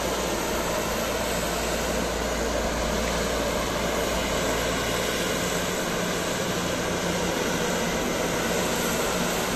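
Twin turboprop engines of a Let L-410 running steadily as the aircraft taxis out onto the runway.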